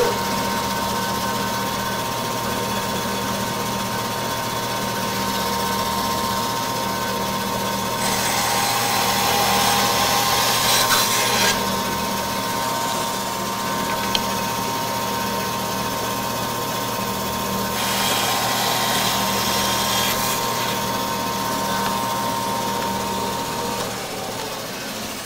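Bandsaw running with a dust collector, a steady machine hum. Twice, about 8 and 18 seconds in, the blade cuts through a wooden hinge blank for two to three seconds, a louder hiss over the hum. Near the end the hum stops.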